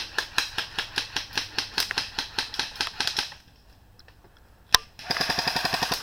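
Airsoft guns firing. There is a run of sharp shots at about six a second, a short pause, a single loud crack, then a fast full-auto burst near the end.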